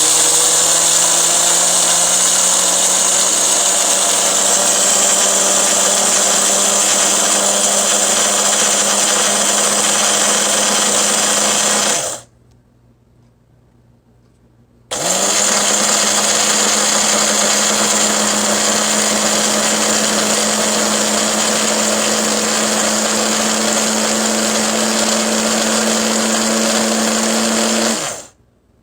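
Built-in coffee bean grinder of a PowerXL Grind & Go single-serve coffee maker grinding whole coffee beans: a loud, steady motor whir that spins up and runs about twelve seconds, stops for about three seconds, then starts again and runs about thirteen seconds more before cutting off near the end.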